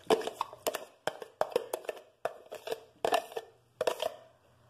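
Diced pineapple being tipped into a glass bowl of diced cucumber: a string of irregular soft taps and clicks as the pieces and the container land in the bowl, stopping shortly before the end.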